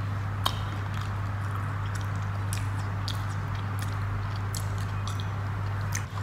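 Mouth sounds of eating with the fingers: wet smacks and sucking clicks as fish is sucked off the bone and chewed, the sharpest about half a second in. A steady low hum runs underneath.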